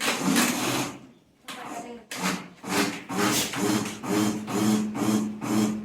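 Chocolate cake batter being beaten lightly after the baking powder goes in, in quick rhythmic strokes about two or three a second after a short pause, each with a low hum and a rubbing hiss.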